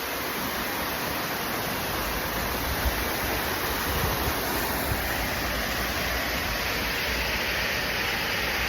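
Waterfall: falling water rushing in a steady, even roar of noise.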